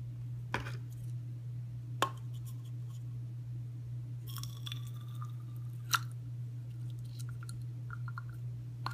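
Sharp plastic clicks and taps from a syringe and small plastic vial being handled over a glass tumbler, four distinct clicks spread through, with a brief squeak about four seconds in, over a steady low hum.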